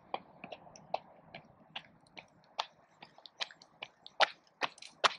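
Jogging footsteps of running shoes on an asphalt path, an even beat of about two or three steps a second, growing louder as the runner approaches.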